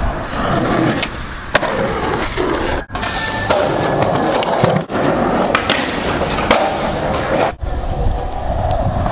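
Skateboard wheels rolling over concrete and asphalt, with a few sharp clacks of the board popping and landing. The sound breaks off abruptly three times as one clip cuts to the next.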